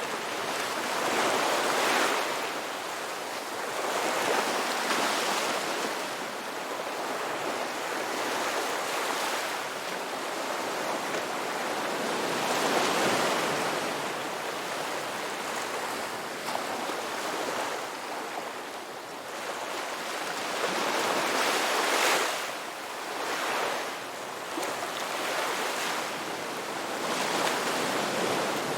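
Ocean waves breaking on a beach: a continuous hiss of surf that swells and recedes every few seconds, with a sharper crash about 22 seconds in.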